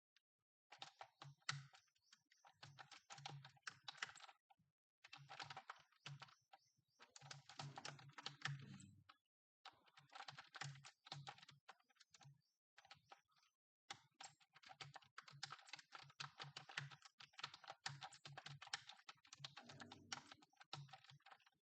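Computer keyboard typing: rapid runs of keystroke clicks lasting a few seconds each, broken by short pauses.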